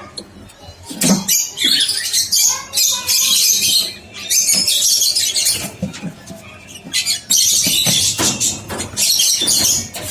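Small parrots in an aviary cage screeching in harsh, high-pitched bursts, about five of them, each lasting around a second. There is a single knock about a second in.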